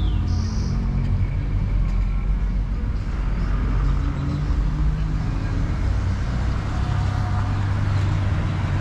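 Road traffic: car engines running with a steady low rumble.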